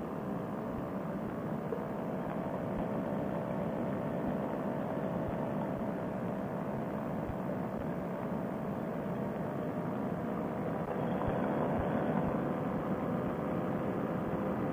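Paramotor trike's two-stroke engine running steadily in flight, mixed with wind rush. It makes an even drone whose pitch sags slightly in the second half.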